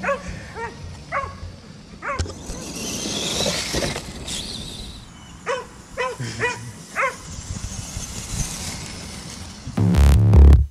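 A dog barking in two runs of about four short, high barks, one at the start and one about halfway through, over the high whine of an RC monster truck's brushless electric motor. Loud electronic music cuts in near the end.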